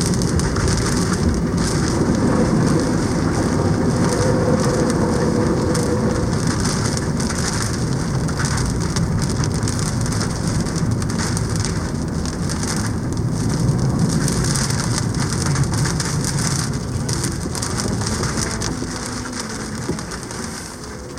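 Typhoon rainstorm: heavy rain pouring steadily, with strong low wind noise that swells and eases, dropping off a little near the end.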